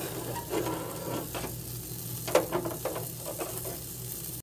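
Burger patties sizzling on a wire grate over a charcoal fire, with the charcoal crackling as flames flare up under the meat. A few sharp clicks and knocks are scattered through it.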